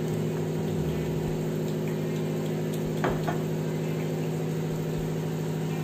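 Steady electrical hum with a low buzz from a running kitchen appliance, with one faint tap about three seconds in.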